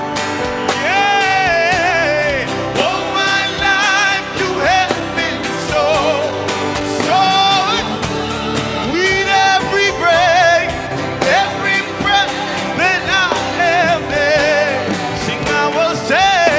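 Live gospel worship music: a band with a steady drum beat and sustained chords under a lead melody with wide vibrato, with singing.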